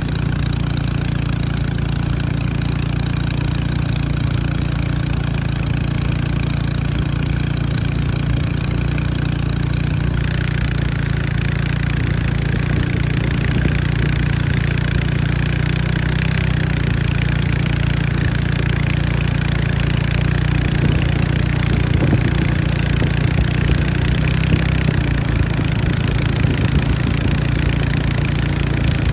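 Small longboat engine running steadily at high throttle, racing flat out without a break.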